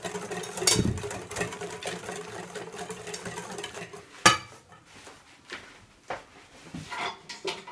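Wire balloon whisk beating cake batter in a glass bowl: a fast run of clicks and scrapes against the bowl. About four seconds in there is a single sharp knock, then only a few scattered clicks.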